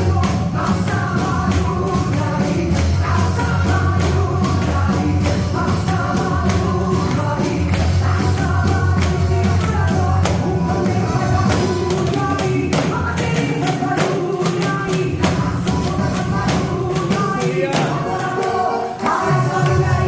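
A tambourine struck and shaken in a quick, steady rhythm, playing along with a Christian worship song with singing and a band.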